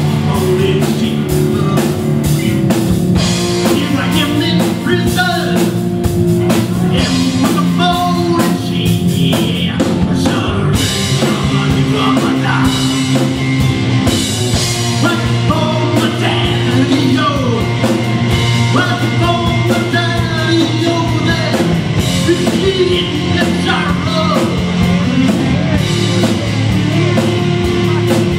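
Rock band playing live: electric guitars, electric bass and drum kit.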